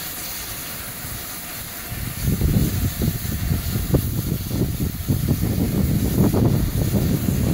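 A GWR Manor-class steam locomotive hissing steam while it is turned on a turntable. About two seconds in, a loud, uneven low rumble begins and continues.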